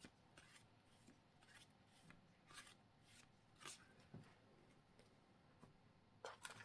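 Near silence with faint, scattered rustles and soft ticks of trading cards and plastic card sleeves being handled.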